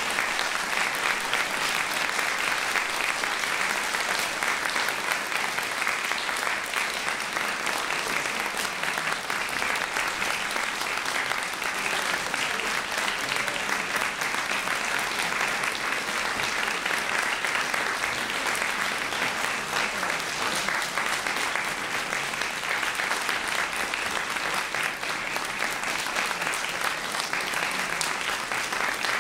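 A concert audience applauding steadily, dense hand-clapping without let-up.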